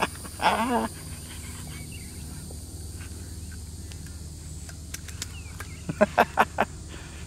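Evening outdoor ambience: a steady high insect drone over a low hum. A short wavering voice comes about half a second in, and a quick run of four short sharp sounds around six seconds in.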